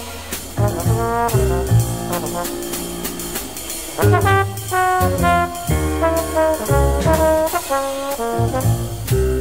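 Hard bop jazz by a sextet of trumpet, alto saxophone, trombone, piano, bass and drums: a horn plays a melodic line of changing notes over bass, piano and drums with cymbals.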